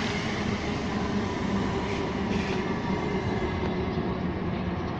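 South West Trains Class 455 third-rail electric multiple unit pulling in along the platform: a steady noise of wheels on rail with a faint even hum.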